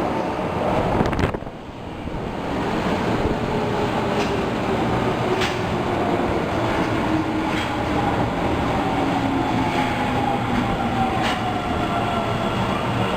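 Osaka Metro Tanimachi Line subway train running and slowing down. Its motor whine falls steadily in pitch, and the wheels click over rail joints every second or two.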